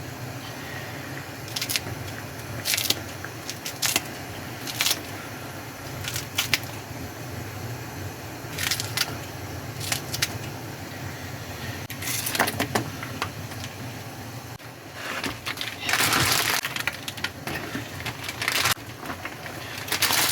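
Close-miked eating sounds: ramen noodles being slurped and chewed in short separate bursts, with one longer slurp about three-quarters of the way through, over a steady low hum.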